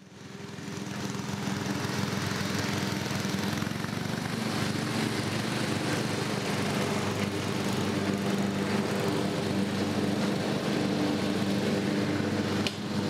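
Riding lawn mower's 12-horsepower Briggs & Stratton flathead engine running steadily as the mower drives across the grass, fading in over the first second or two.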